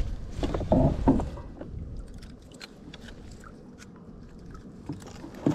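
Close handling noises as a bass is unhooked in a landing net: a burst of louder rustling and scuffing in the first second or so, then scattered small clicks and taps from the net, pliers and kayak, with a sharper knock near the end.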